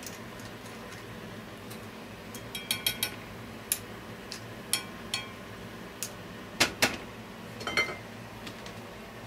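Asari clam shells clicking against each other and the stainless steel frying pan as they are turned with tongs: a scatter of sharp, irregular clinks, several in quick pairs, some ringing briefly.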